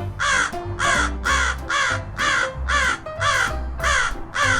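Crow cawing in a rapid, even series of harsh calls, about three a second, each call dropping in pitch.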